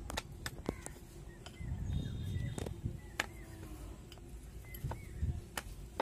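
Wooden rolling pin rolling dough thin on a wooden board, a low rumble with each stroke, loudest about two seconds in and again briefly near the end, with scattered light clicks and knocks.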